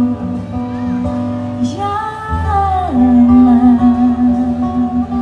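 A woman singing a slow ballad live, holding long notes with one sliding down about halfway through, over acoustic guitar accompaniment.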